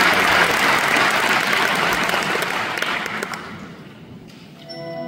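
Concert audience applauding, the clapping dying away over about three seconds. Near the end, the orchestra's music begins with held notes.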